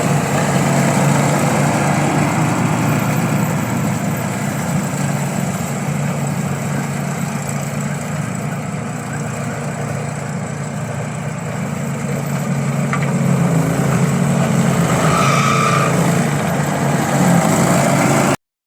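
Engine of a remote-control lawn mower running steadily, easing a little in the middle and picking up again.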